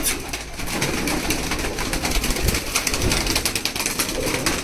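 Domestic pigeons flapping their wings in a flurry of rapid wing beats as they are flushed and one is caught by hand, with pigeons cooing.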